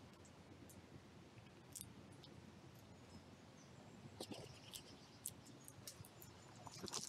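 Grey squirrels gnawing nuts and seeds on the ground, heard as faint scattered clicks and crunches over a near-silent background. The clicking grows busier about four seconds in.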